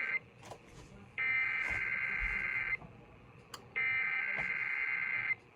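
Emergency Alert System SAME header data bursts broadcast over KDKA radio, a harsh buzzy digital screech. The tail of one burst at the start is followed by two more bursts of about a second and a half each, with a short gap between them: the header sent three times to open the EAS test.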